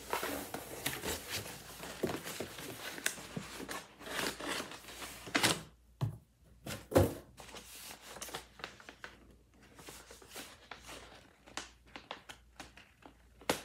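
A cardboard shipping box being opened and its paper packing handled: irregular rustling, crinkling and light cardboard knocks, with two louder knocks about five and a half and seven seconds in.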